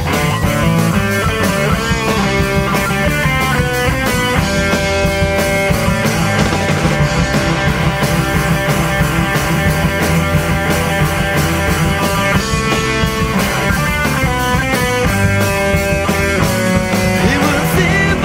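Rock band playing an instrumental passage: distorted electric guitars over a steady drum kit beat.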